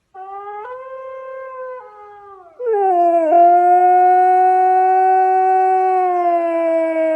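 A dog howling: a soft note that rises at first, then about two and a half seconds in a much louder long howl that slowly sinks in pitch.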